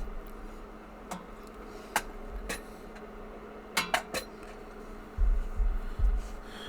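Light metallic clicks and clinks, about six spread over the first four seconds, as a freshly picked padlock and its picking tools are handled and set down, followed by low handling bumps near the end.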